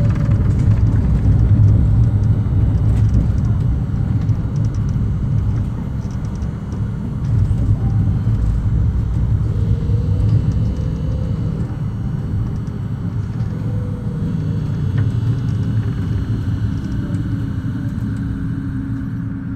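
Ruhrbahn M8D-NF tram running, a steady heavy rumble of wheels and running gear with faint whining tones that glide down and then up in pitch. The sound eases off gradually toward the end.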